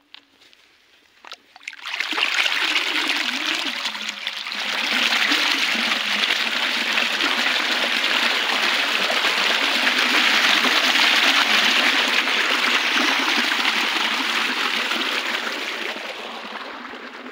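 Irrigation water gushing up out of a concrete pipeline outlet and splashing into a flooded field channel once the valve is opened. It starts about two seconds in, grows stronger around five seconds, runs steadily, and fades near the end.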